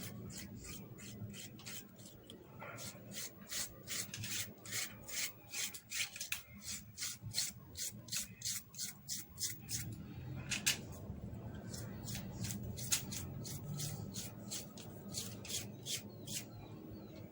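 Scraping the gel out of a cut aloe vera leaf: quick repeated scraping strokes, about three a second, for several seconds, then a few scattered strokes.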